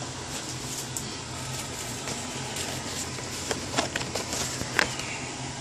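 Steady hum of an air conditioner, with a few sharp clicks and crinkles of plastic blister packaging being handled about three and a half seconds in, the last click the loudest.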